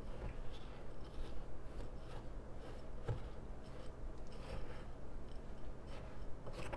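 Silicone spatula stirring a mix of Dead Sea, Epsom and dendritic salt in a glass bowl: gritty scraping of salt crystals against the glass in irregular strokes.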